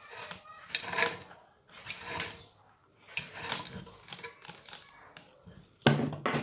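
Metal parts of a ceiling fan being handled during disassembly: irregular clinks, clicks and knocks, with a louder clatter near the end.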